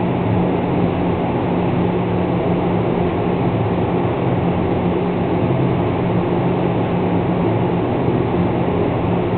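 Steady machine hum over a rushing noise, unchanging throughout.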